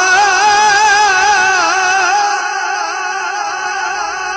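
A male voice holding one long, ornamented note in a Punjabi Sufi kalam, the pitch wavering up and down, growing softer about two seconds in.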